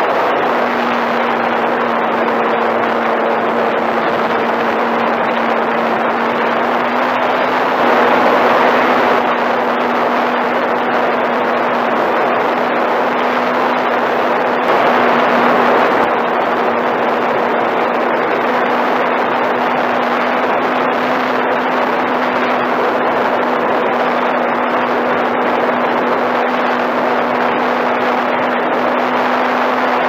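Onboard sound of a radio-controlled model airplane in flight: the motor and propeller give a steady hum under loud wind rushing over the microphone. The rush swells briefly about eight seconds in and again about fifteen seconds in.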